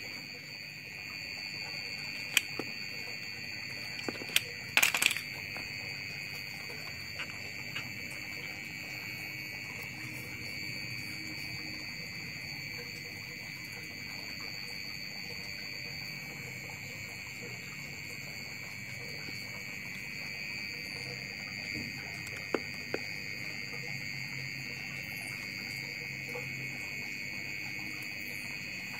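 A steady high-pitched electronic buzzer-like tone runs on without a break. A few sharp clicks come about 2 and 4–5 seconds in and again around 22 seconds, as the capacitor and its wires are handled.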